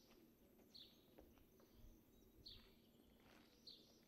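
Near silence broken by a bird repeating a short, high chirp that falls in pitch, three times.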